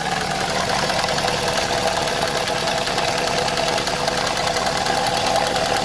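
Opel Vectra A engine idling with the valve cover off, the open valvetrain making a rapid, even ticking. The owner blames a valve tap on a worn camshaft lobe that was short of oil.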